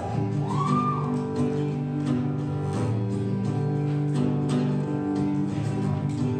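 Music: an acoustic guitar strumming chords in an instrumental break of the song.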